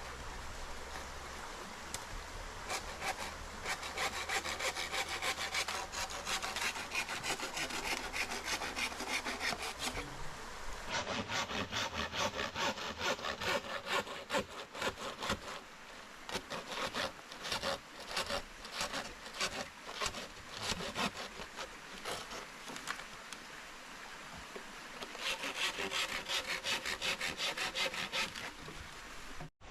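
Wood being sawn with a long run of rapid back-and-forth strokes, easing off briefly before a final burst of strokes near the end.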